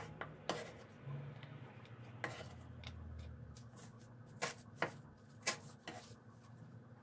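Kitchen knife striking a wooden cutting board in about six scattered strokes while cutting onion and perilla leaves, with quiet handling of the vegetables between the strokes.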